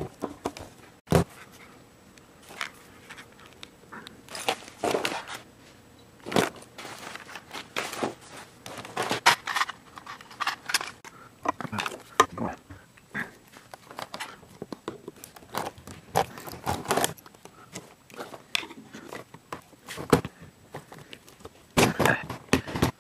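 Screwdriver prying and scraping at the plastic case of a laptop AC power adapter: irregular clicks, scrapes and creaks of plastic as the tightly held case is worked at.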